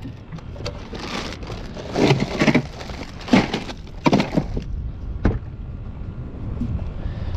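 Ice cubes crunching and clattering in a plastic cooler as hands dig through the ice, in several rough bursts. There is a single sharp knock about five seconds in.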